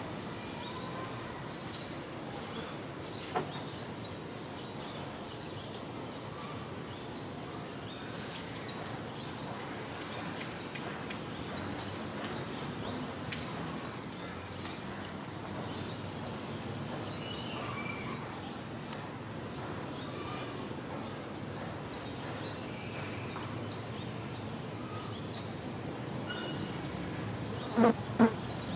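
Two cats play-fighting on a cushioned chair, with two sharp thumps near the end as they tussle. Behind them, a steady high whine and scattered short high chirps run on.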